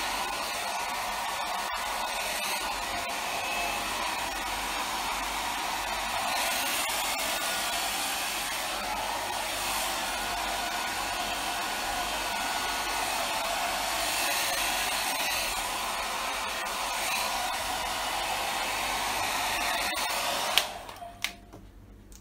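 Small handheld hair dryer blowing steadily, then switched off near the end with a click.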